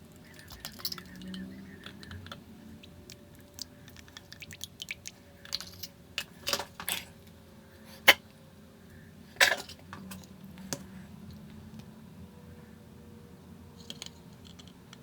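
Scattered light clicks and knocks of hard objects being handled, with a sharp knock about eight seconds in.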